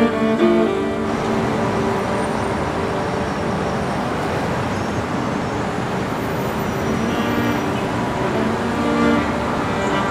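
Street traffic noise at a city intersection: a steady wash of car and truck sound. Cello background music fades out about a second in and fades back in near the end.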